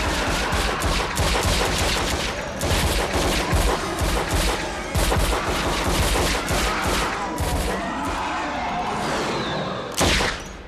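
Rapid, overlapping handgun fire from several shooters, a dense volley of shots. One louder shot comes near the end, then the firing stops.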